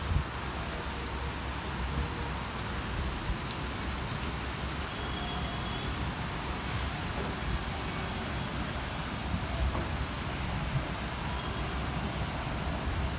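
Heavy rain falling steadily on trees, car roofs and wet pavement, with a low, uneven rumble underneath.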